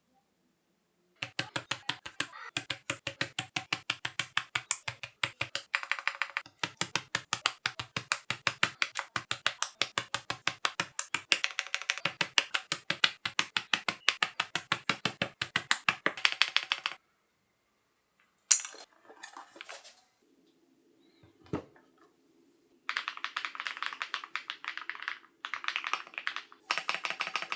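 Typing on an SPM AL82A full-aluminium hot-swap mechanical keyboard with wood-pattern keycaps: long runs of quick keystrokes, about five a second. The typing stops for several seconds past the middle, with a couple of single clicks, then starts again near the end.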